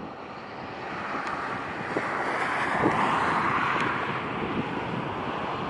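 A car driving, its rushing engine and road noise swelling to a peak about three seconds in and then easing slightly.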